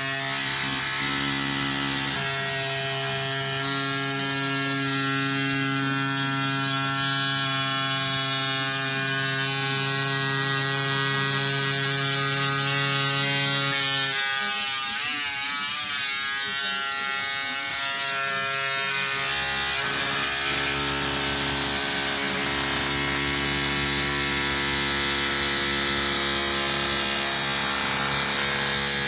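Cordless electric scissors buzzing steadily as their motor-driven blades snip through lining fabric. The motor pitch wavers briefly about halfway through, then settles again.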